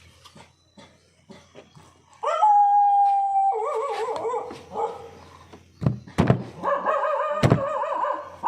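A dog howling: one call rises and holds steady, then long wavering calls follow. A few sharp knocks sound in between.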